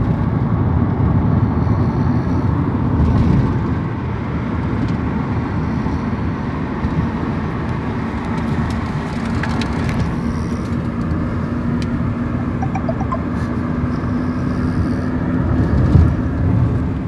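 Snoring in a moving car, over steady road and engine noise.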